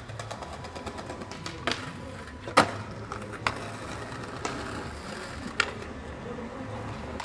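Skateboard wheels rolling over street pavement, with several sharp clacks of the board. The loudest clack comes about two and a half seconds in.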